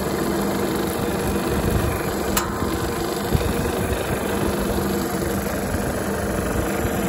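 Hafco Metalmaster BS-7L horizontal metal-cutting band saw running steadily with no workpiece: a motor and gearbox hum under the whir of the moving blade. A single light click about two and a half seconds in.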